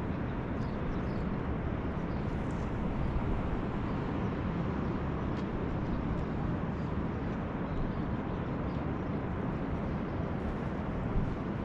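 Steady low rumble of wind buffeting the microphone on an open beach, with one small click near the end.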